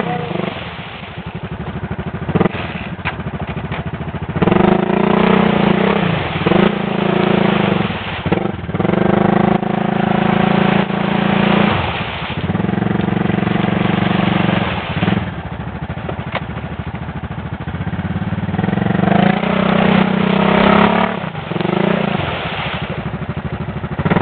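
Arctic Cat 650 ATV engine revving up and down again and again, dropping back to a slow chugging between bursts of throttle, as it works through ice and mud.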